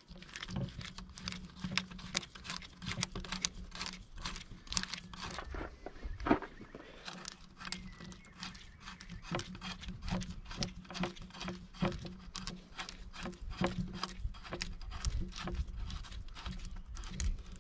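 Irregular, rapid clicking and scraping of a hand tool doing up a 10 mm bolt on a car's air intake.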